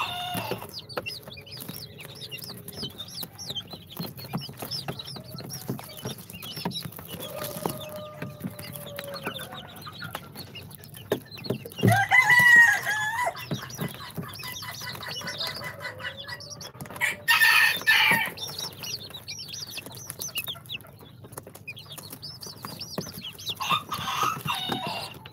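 Young chicks peeping continuously in many short, high chirps. There are louder, longer bursts of calling about twelve and seventeen seconds in.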